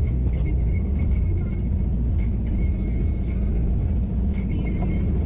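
Diesel 4x4 engine running with a steady low rumble.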